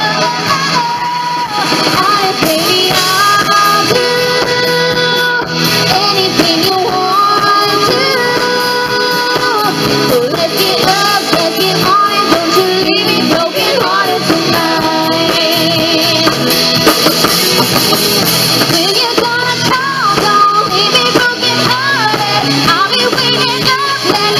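Live pop-rock band music: a woman singing into a microphone over a full band, loud and continuous.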